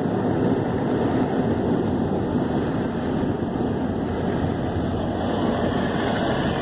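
Car wash air-dryer blowers running, a steady rush of air over the car, heard from inside the cabin.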